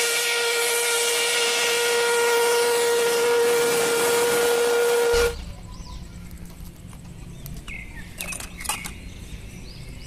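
Steam locomotive whistle blowing one long, steady blast over a hiss of steam, cutting off suddenly about five seconds in. After that only a faint background remains, with a few light clicks.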